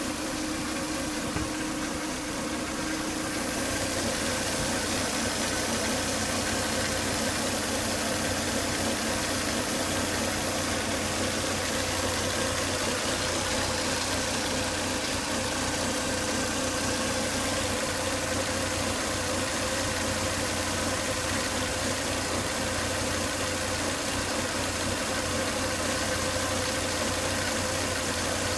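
Volvo S80 2.5T's turbocharged five-cylinder engine idling steadily, with a steady whine running over it. The owner traced the noise to a clogged crankcase breather (PCV) box, which was pulling high vacuum in the intake.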